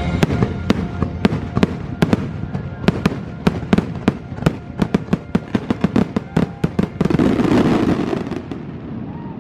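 Fireworks finale: a rapid string of sharp bangs that comes fastest in the middle, with show music playing underneath. About seven seconds in, the bangs give way to a louder spell of dense rushing noise that fades near the end.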